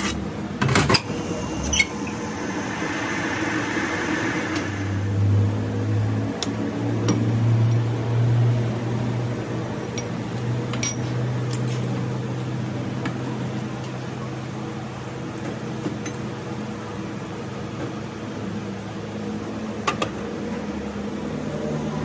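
Sharp metal knocks as a cast truck steering knuckle is handled in a lathe's four-jaw chuck, twice in the first two seconds, then a brief hiss. A steady low machine hum starts about five seconds in and keeps going, with one more click near the end.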